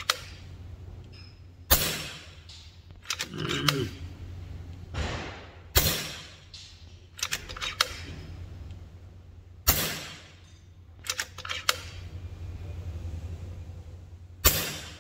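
FX Crown MK2 .22 PCP air rifle firing four shots about four seconds apart, each a sharp report that fades quickly. Between shots come quieter clicks of the side-lever action being cycled to cock the rifle and load the next pellet.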